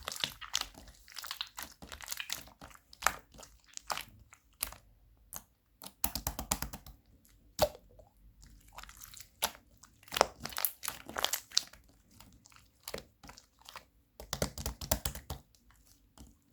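Slime being squeezed and pressed by hand, giving bursts of rapid crackling and clicking pops with short pauses between.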